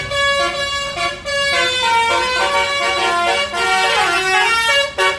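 Bus telolet horn, the multi-tone musical air horn of an Indonesian bus, playing a melody of short and held notes, with a swooping dip in pitch about four seconds in.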